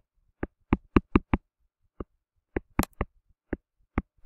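Stylus tip tapping and clicking on a tablet screen while handwriting, about a dozen sharp, irregular taps.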